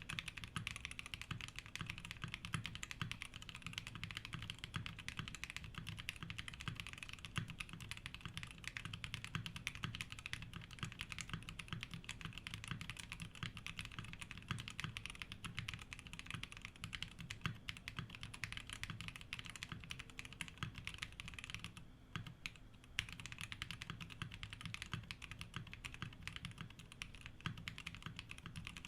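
Continuous fast typing on a MONOKEI x TGR Tomo 75% custom mechanical keyboard with Zaku switches, with key strikes following one another closely. It breaks off briefly about three-quarters of the way through, then resumes.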